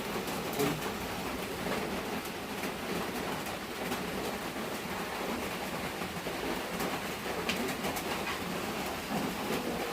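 Steady hiss of rain falling, with a few faint clicks.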